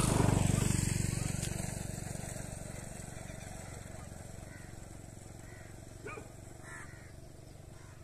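A motor vehicle's engine passing close by and then fading away. It is loudest about half a second in and dies down over the next several seconds.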